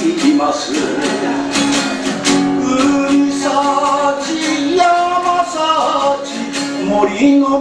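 A man singing to steadily strummed acoustic guitar.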